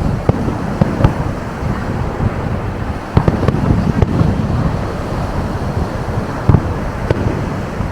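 Fireworks exploding: scattered sharp bangs, with a quick cluster about three seconds in and another loud one past six seconds. Under them runs a steady low rumble of wind on the microphone.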